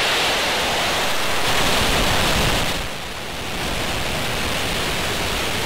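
Falcon 9 rocket's nine Merlin 1D first-stage engines at liftoff: a loud, steady rushing noise, dipping briefly about three seconds in.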